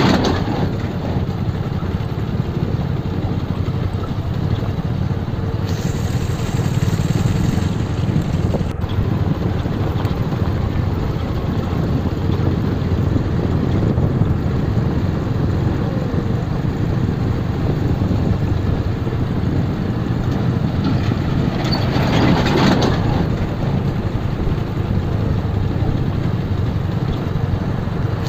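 Motorcycle engine running steadily as the bike is ridden slowly over a rough dirt road, heard as a steady low rumble from a microphone on the moving bike. Briefly louder about three quarters of the way through.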